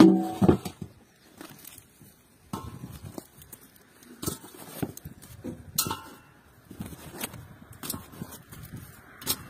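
An enamel metal bowl set down on a table with a ringing clang, then crusty tandoor-baked loaves dropped into it one at a time, each landing with a knock and a crackly rustle about once every second or so.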